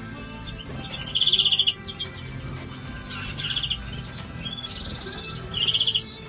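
Cage birds chirping in short bursts of quick notes, four bursts in all, the third higher-pitched and buzzier than the others.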